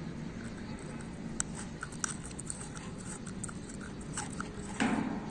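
Faint metallic clicks and scrapes of a pin being screwed by hand into a metal satellite-dish LNB bracket, over steady outdoor background noise. A louder short noise comes near the end.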